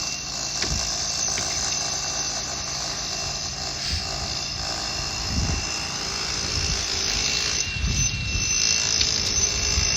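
A power tool running steadily, with a thin steady whine over it, used to cut decorative concrete pieces out of a brick wall. Low rumbles come in about halfway through and again later.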